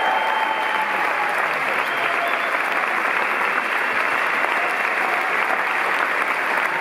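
A large audience applauding steadily, a dense, unbroken clapping.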